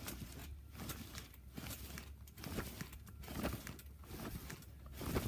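Someone bouncing on a trampoline: soft thumps and rustling about once a second.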